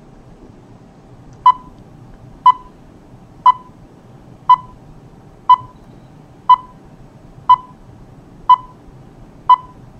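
Countdown beeps: nine short, identical beeps, one each second, marking off the numbers of a video countdown.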